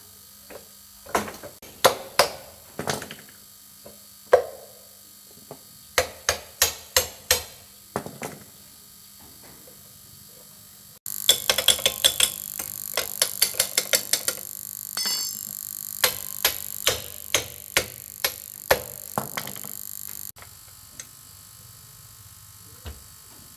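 Hand tools clicking and knocking against metal motorbike parts during repair work, in quick runs of several sharp strikes. A steady hiss sits under the strikes between about 11 and 20 seconds in.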